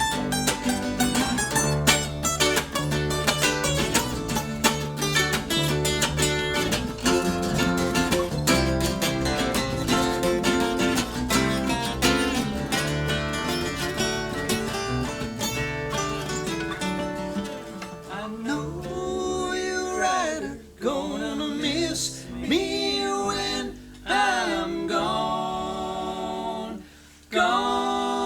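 Acoustic string band of guitar, mandolin, dobro and banjo playing an instrumental bluegrass-style passage. About two-thirds of the way through, the instruments mostly drop away and voices take over, singing in harmony in short phrases.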